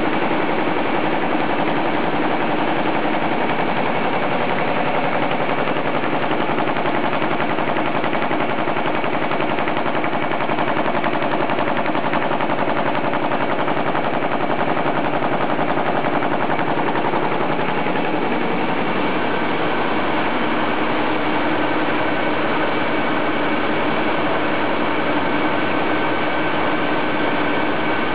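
Winkler+Dunnebier 624 paper-handkerchief line with its Senning packing machines running at production speed: a loud, steady, very rapid mechanical clatter with a hum of several steady tones. A higher tone joins about two-thirds of the way through.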